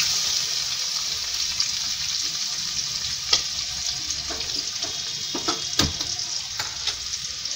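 Freshly added chopped raw onion sizzling steadily in hot oil in a kadai with whole spices, stirred with a steel spatula that scrapes and clicks against the pan a few times, with one sharp knock about three-quarters of the way through.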